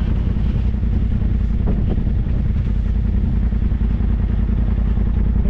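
Side-by-side UTV engine idling, a steady, deep running sound as the machine rolls to a stop on the sand.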